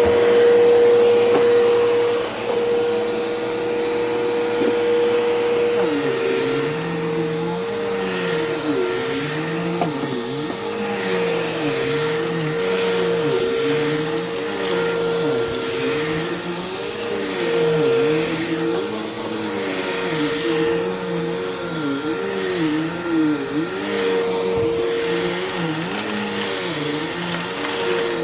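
Bissell PowerForce Helix upright vacuum cleaner running on carpet: a steady motor whine, with a lower hum whose pitch starts rising and falling over and over from about six seconds in.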